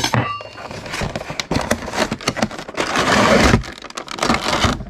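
Cardboard and plastic packaging being opened by hand: scraping, crackling and crinkling with a run of small clicks, and a longer, louder rustle about three seconds in.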